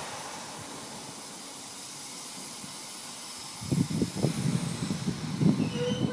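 Steady hiss, then about four seconds in the loud, uneven rumble of an electric commuter train running into the station on the near track. A brief ringing tone sounds near the end as it comes in.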